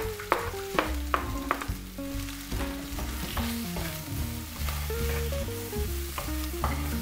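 Green peppers and sliced garlic sizzling in olive oil in a nonstick frying pan, stirred with a wooden spatula that knocks against the pan several times, most often in the first two seconds. A background music melody plays underneath.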